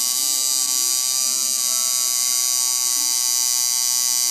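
Tattoo machine buzzing steadily as its needle works ink into skin.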